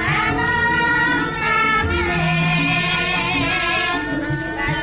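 A Javanese gamelan ensemble (karawitan) plays with female sinden singing, including a long wavering sung note in the middle.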